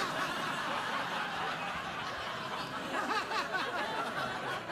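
Studio audience laughing: a steady spell of crowd laughter from many people at once.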